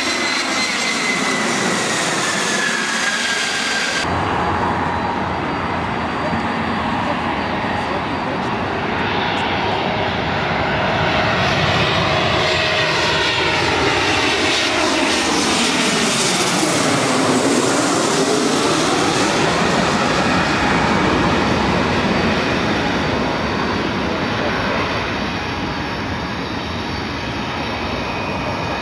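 Jet airliners on landing approach: a steady engine rush and whine whose pitch sweeps as each aircraft passes close overhead. The sound changes abruptly about four seconds in, at a cut to another aircraft.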